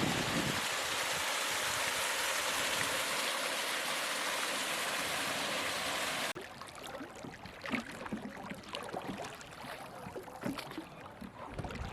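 Rushing water, steady and full, for about six seconds, then a sudden cut to quieter water with scattered small splashes and trickles.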